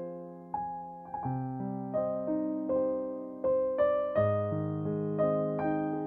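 Background music: a slow solo piano piece, notes and chords struck about every half second, each ringing and fading.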